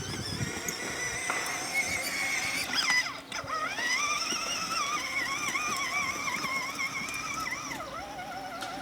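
Music-like warbling tones, held and wavering in pitch, with a swoop upward about three seconds in.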